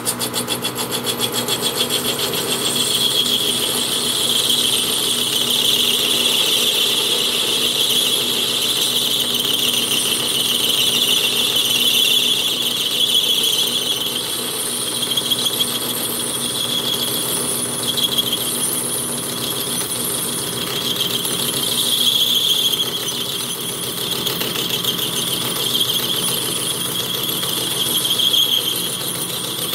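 Metal lathe parting off a small turned part: the parting blade squeals as it cuts, a high steady squeal that swells and fades every few seconds over the running spindle. The blade is rubbing a little on the side of the groove.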